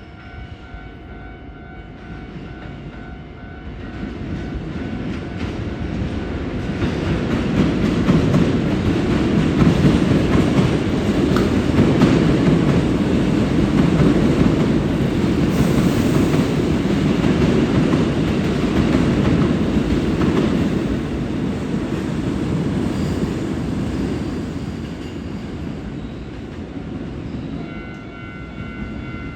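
A Hankyu electric train runs past close by. Its rumble builds over several seconds, holds loud through the middle and fades away near the end. Level-crossing warning bells ring steadily at the start and again as the train's sound fades.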